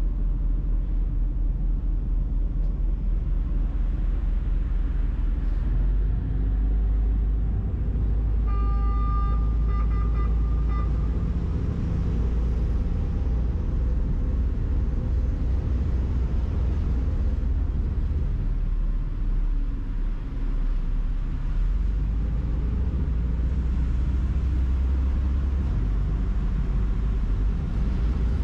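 Steady low engine rumble of a moving vehicle, with a short run of high pitched tones repeated a few times about nine seconds in.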